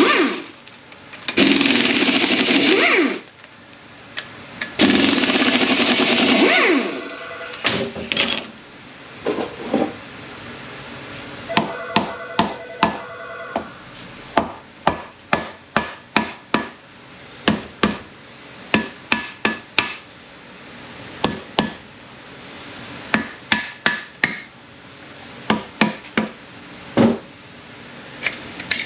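A power tool runs in three bursts of a few seconds each. It is followed by a long, irregular series of sharp metal-on-metal taps and clanks, some ringing briefly, as parts of an A650E automatic transmission are knocked and handled during teardown.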